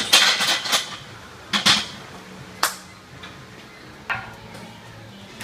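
Loaded steel barbell set back onto a power rack's hooks: a burst of metal clanks with iron plates rattling, then single sharp clanks about a second and a half and two and a half seconds in, and a softer knock near four seconds.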